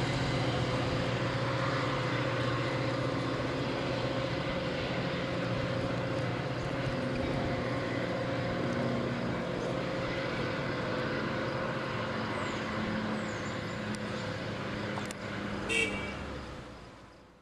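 Metra diesel commuter train pulling away: a steady engine drone with wheel and rail noise that slowly weakens as the train recedes. A brief sharp click comes near the end, and then the sound fades out.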